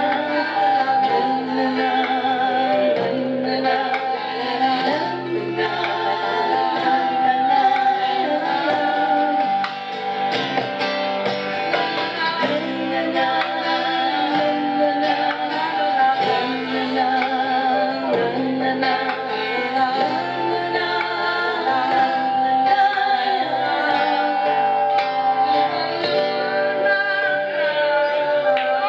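Live band performance: several women singing together into microphones, backed by acoustic guitar and band.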